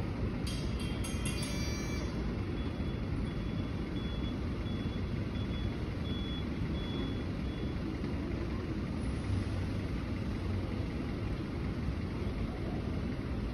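Steady low rumble of street traffic with a vehicle engine running. Near the start comes a short cluster of clicks with high ringing tones, then a faint high beep repeats about every two-thirds of a second for several seconds, like a vehicle's reversing alarm.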